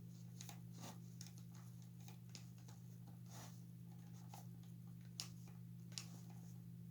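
Faint handling noises of hands working at a toy figure to get its head off: scattered small clicks and rustles, with two sharper clicks about five and six seconds in, over a steady low hum.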